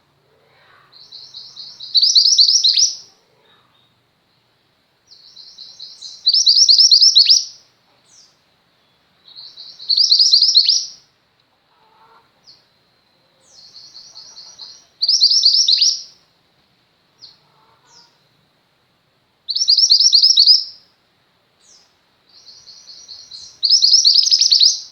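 Female mantenan gunung singing: six repeated phrases, each a soft run of high notes that builds into a loud, fast trill lasting about a second, with short pauses between phrases.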